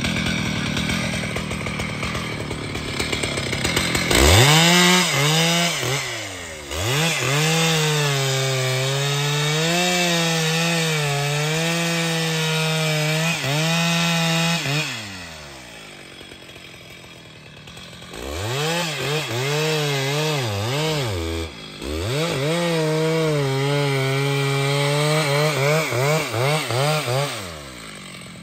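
Stihl MS 881 two-stroke chainsaw idling, then revving up about four seconds in and cutting into a large log, its pitch dipping and recovering as the chain bites into the wood. It drops back to idle for a few seconds past the middle, then revs and cuts again, with a brief dip in the revs, before falling back to idle near the end.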